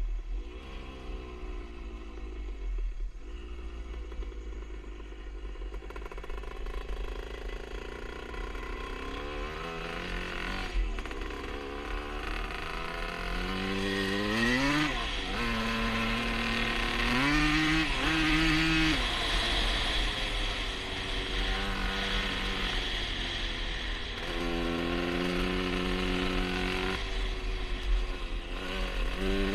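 1977 Honda CR125 Elsinore's 125 cc two-stroke single-cylinder engine running on its newly fitted HPI ignition, revved up and down several times with steady holds between the revs.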